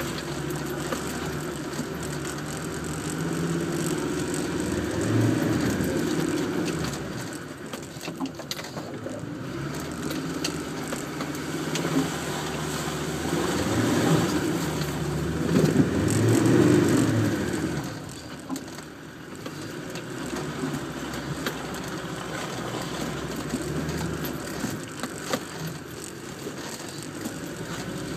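Land Rover Defender engine working under load as it drives over a rutted mud track, heard from inside the cab. The revs rise twice, most strongly about two-thirds of the way through, then drop back, with a few short knocks along the way.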